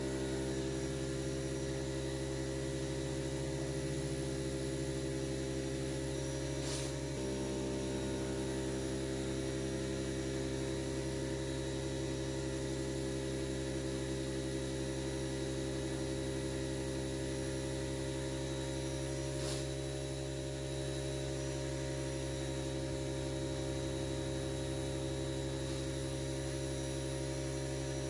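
Air compressor motor running steadily, a hum made of a stack of level tones that shifts slightly about seven seconds in. It is blowing air through an inground pool's return line to purge the water ahead of the antifreeze for winterizing.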